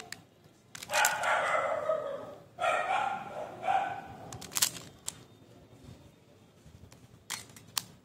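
A dog barking in the background, a run of barks from about one to four seconds in, over a few sharp clicks of a plastic Pyraminx puzzle being turned by hand.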